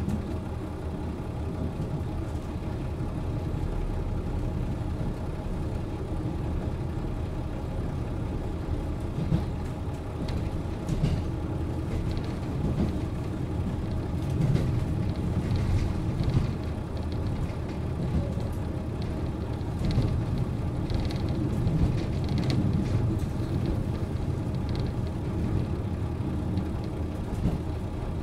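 A JR Hokkaido KiHa 40 diesel railcar standing at a platform with its engine idling steadily, a low even hum with a few light clicks and knocks scattered through it.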